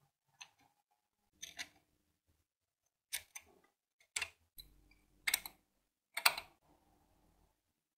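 Steel pick and screwdriver tip scraping and clicking against the corroded metal recess of an old tire inflator part, digging out crusted deposits: about six short, sharp scrapes with pauses between them, the loudest near the end.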